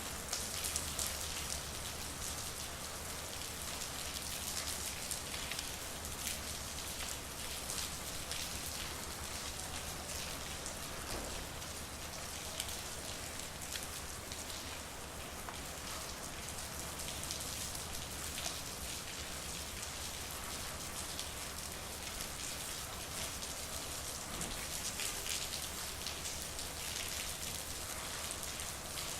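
Steady rain falling, with the sharp ticks of many individual drops striking close by over an even hiss.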